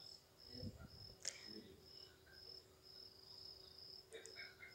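Faint cricket chirping, a short high chirp about twice a second, over a low steady hum, with a single click about a second in.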